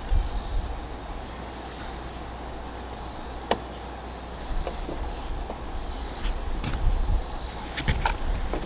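Steady high-pitched insect chorus, with a few sharp clicks and some low rumbles on the microphone.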